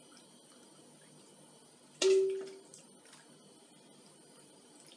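A metal ladle clinks once against the metal tray about two seconds in, giving a short ringing tone that fades within half a second, with a few faint taps after it.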